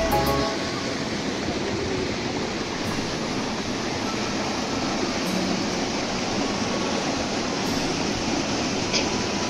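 Steady rush of a small waterfall and stream pouring over rocks. Background music cuts off about half a second in.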